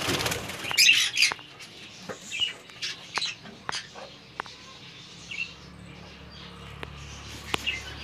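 Budgerigars in a wire cage giving short, high chirps every second or so, with a flurry of wing-flapping about a second in and light clicks.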